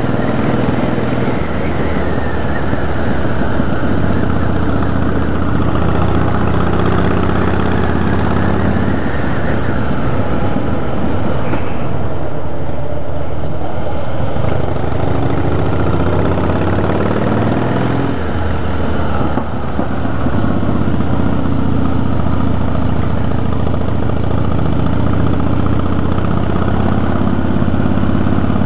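Harley-Davidson V-twin motorcycle engine running under way, heard from the bike with wind noise; the throttle eases off around the middle, then the engine pulls again.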